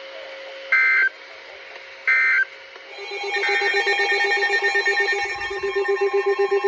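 Two short bursts of Emergency Alert System data tones, the warble of the digital end-of-message code, then about three seconds in a loud steady alert tone begins, with a fast pulsing tone underneath.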